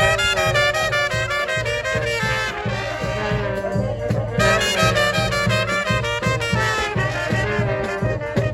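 Upbeat brass-led music in a swing style, with trumpets and trombones over a steady bass beat.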